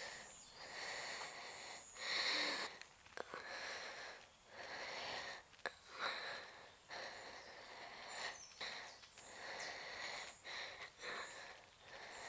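A young woman's heavy breathing: separate rasping breaths, one every one to two seconds. From about two-thirds of the way in, a high, rapidly repeating insect trill runs beneath the breaths.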